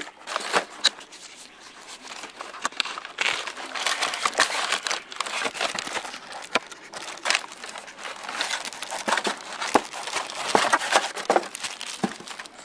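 Brown kraft packing paper crumpling and crinkling as it is pulled aside in a cardboard shipping box, with cardboard boxes being handled: irregular crackles and sharp clicks, quieter for a couple of seconds near the start.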